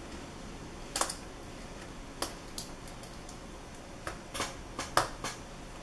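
Scattered light clicks and taps, about eight in irregular succession, from a small Phillips screwdriver and fingers working at the tiny screws that hold the battery inside an opened laptop.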